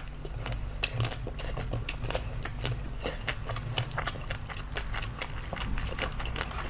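Close-up crunching and chewing of a chocolate-coated ice cream bar: the hard chocolate shell cracks in many quick, small crackles and mouth clicks as it is bitten and chewed.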